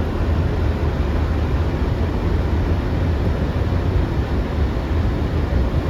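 Steady rumble on the flight deck of an Airbus A330F in flight on approach, airflow and engine noise at a constant level, deepest in the low end.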